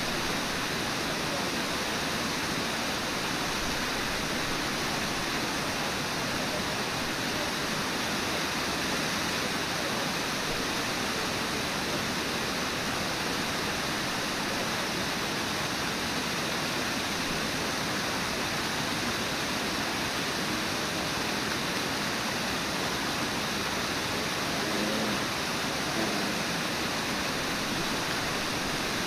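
Steady rushing roar of Brooks Falls, a low waterfall, and the white-water rapids below it, even and unbroken throughout.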